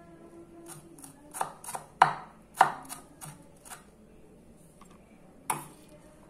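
Sakai Takayuki Damascus gyuto chopping tomato on a wooden cutting board: a quick run of about ten knocks of the blade on the board, then a single knock near the end.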